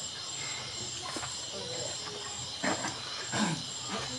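Night insects chirring steadily in a high pitch, with a couple of brief low voices about two and a half and three and a half seconds in.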